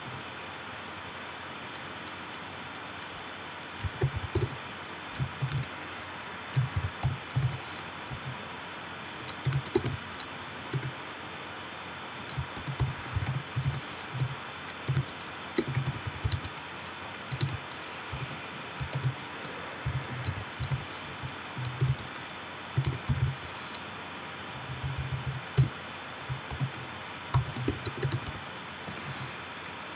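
Typing on a computer keyboard in short irregular bursts of key clicks, starting about four seconds in, over a steady background hiss.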